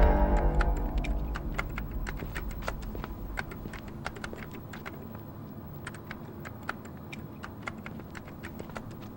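A low sustained drone fades out over the first few seconds, giving way to irregular light clicks, several a second, like typing on a keyboard.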